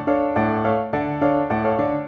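Background instrumental music: a run of notes, several sounding together, changing every fraction of a second.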